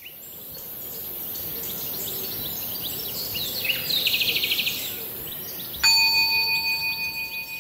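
Edited-in sound effect: high, bird-like chirps and twitters fading in, with a quick trill about four seconds in, then a steady bell-like chime tone held from about six seconds.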